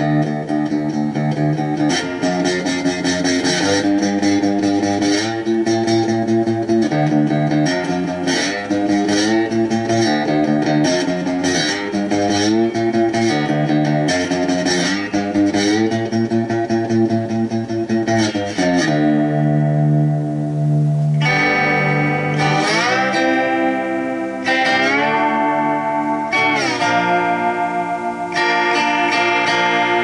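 Homemade stringed instrument built from a metal pan, played flat on the lap like a guitar: plucked strings ring out in a steady run of notes and chords, then from about two-thirds of the way through the notes glide up and down in pitch.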